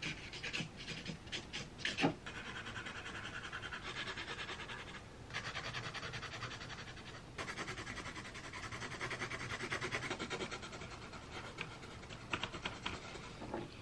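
Felt-tip marker scribbling rapidly back and forth on a stretched canvas, colouring in, as a fast rhythmic rubbing. A few light taps and clicks come in the first two seconds, and the rubbing breaks off briefly twice.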